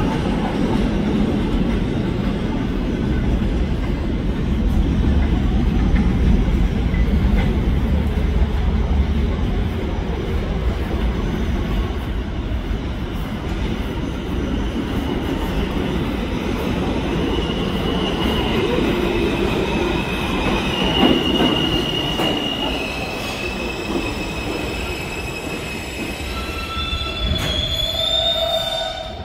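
New York subway R160 trains: a departing train's low rumble, heavy at first and then easing off. Then another R160 pulls into the station with high, steady wheel squeals from about halfway through, and several steady tones near the end as it slows to a stop.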